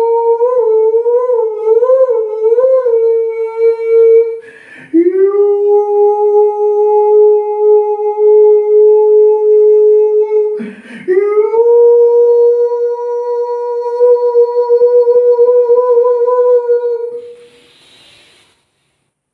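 A voice toning: three long held notes at nearly the same pitch, each several seconds long. The first note wavers and the next two each slide up into the note after a quick breath. A breathy hiss follows near the end.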